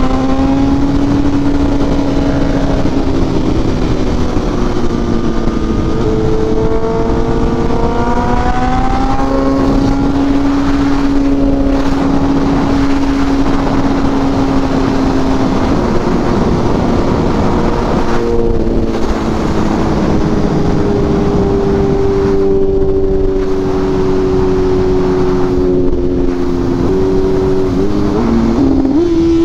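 Sport motorcycle engine running steadily at highway speed under heavy wind rush, with other engines' pitches rising and falling alongside it. Near the end the pitch dips and then climbs sharply as the bike accelerates.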